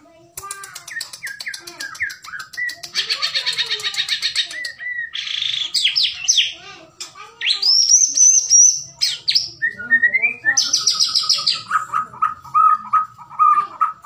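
White-rumped shama (murai batu, Bahorok strain) singing a varied song: quick falling notes, fast rattling trills, clear whistles rising high, then a run of repeated notes near the end.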